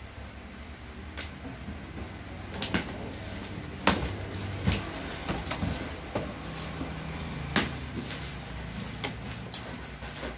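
Cardboard shipping box being handled and opened by hand, its flaps pulled open and folded back. Scattered knocks and rustles of cardboard, the sharpest about four seconds in.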